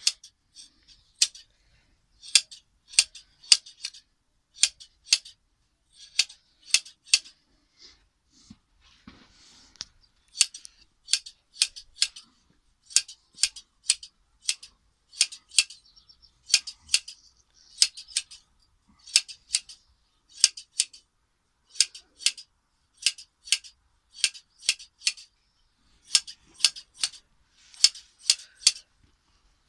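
Large scissors snipping through a sheep's wool during hand shearing: crisp clicks in quick runs of two to four, with a brief lull about eight seconds in.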